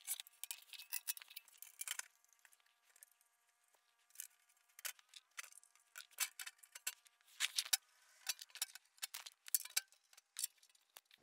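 Light clicks, taps and clinks of an undertray panel being fitted up under a car and its bolts being started by hand, scattered irregularly throughout.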